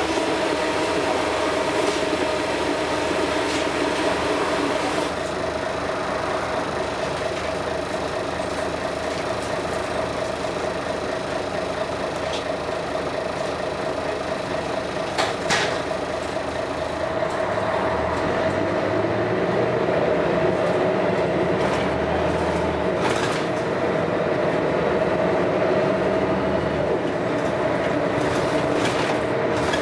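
Scania L113CRL single-decker bus running on the road, heard from inside: a steady engine tone under a constant rattle and thrash from the body and fittings, with a couple of sharp clicks about halfway through.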